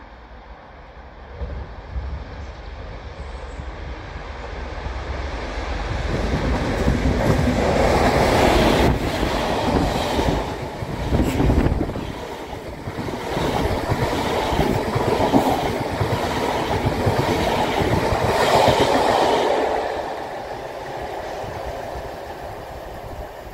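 A Class 50 diesel-electric locomotive coasting past, hauling a rake of Mk3 HST coaches. A low rumble builds as the train approaches and turns loud about six seconds in. The coaches' wheels then clatter over the rail joints for over ten seconds before the sound fades as the train recedes.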